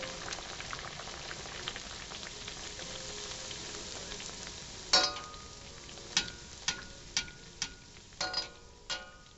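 Sopapilla dough frying in hot oil in a stainless steel pan, a steady crackling sizzle. From about five seconds in, a wire skimmer clinks sharply against the pan several times, each clink ringing briefly; the first is the loudest.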